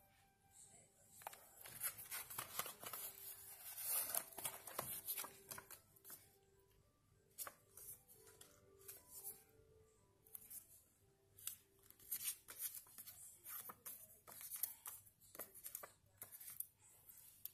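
Printed photos and journal paper being handled: rustling, sliding and light taps of paper, loudest in the first few seconds, with faint background music notes underneath.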